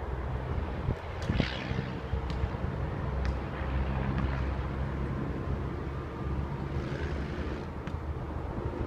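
ACA P-50 outdoor warning siren sounding faintly under steady wind rumble on the microphone, with a couple of brief high chirps.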